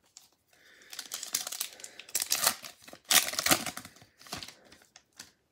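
A foil card-pack wrapper crinkling and tearing as it is pulled open by hand, in uneven rustles from about a second in until a little past four seconds.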